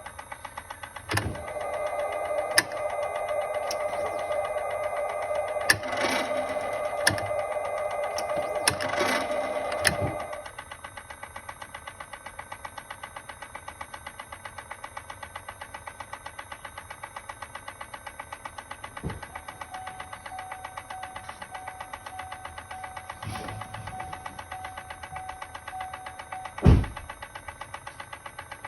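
Fast, regular clicking from a 2018 Chevrolet Volt's transmission. For the first third it sits under a steady hum with several louder knocks, then the hum drops away and the clicking goes on more quietly. A single sharp thump comes near the end.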